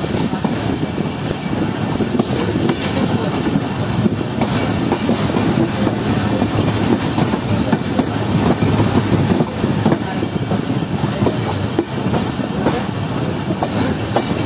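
Wheels of a moving passenger train rumbling along the track, with uneven clicks and clacks as they pass over rail joints, heard from beside the coach.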